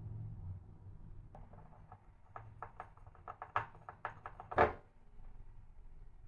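A quick run of light clicks and knocks, irregular and closely spaced, with one louder knock about four and a half seconds in, over a faint low hum.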